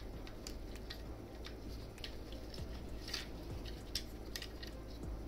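Small plastic snap-fit toy parts being handled and fitted together by gloved hands: faint scattered clicks with soft rubbing, the clearest clicks about three and four seconds in.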